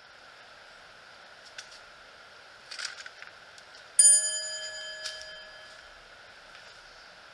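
A single bell struck once, ringing out for nearly two seconds, about four seconds in. It is a comedy 'chiin' sound effect marking a failed sword draw. Before it, a few light clicks and rustles sit over a steady background hiss.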